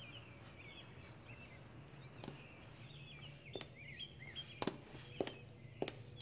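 Small birds chirping softly and continuously. About two seconds in come a few sharp footsteps on a hard floor, irregularly spaced.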